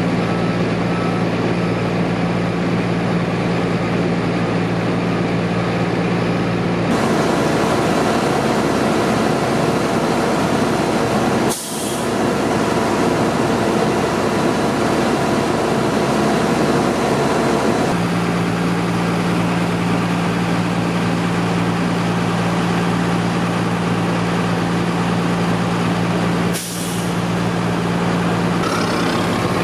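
Heavy truck engines idling in a steady low drone, which shifts abruptly twice and briefly drops out twice.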